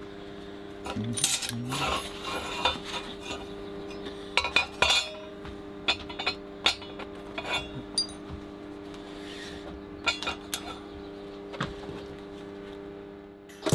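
Steel frame and flat bar being handled and set in place on a steel welding bench between tack welds: scattered clinks and knocks of metal on metal, over a steady low hum.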